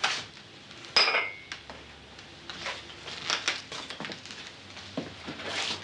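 Dishes and cutlery clinking on a table, with one sharp ringing clink about a second in and lighter knocks and clinks after it.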